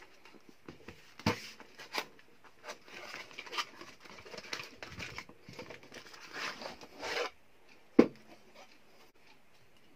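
Cardboard battery box being handled and pulled open, the battery sliding out: rustling and scraping with a few small clicks for about seven seconds. Then a single sharp knock about eight seconds in as the sealed lead-acid battery is set down on the wooden desk.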